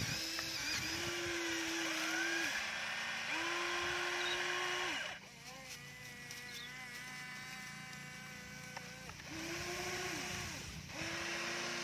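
Small electric motors of a Huina radio-controlled toy excavator whining as the arm and upper body move, in a series of runs of one to four seconds, each rising in pitch as it starts and dropping as it stops. Through the middle stretch a higher, quieter whine runs on its own for about four seconds.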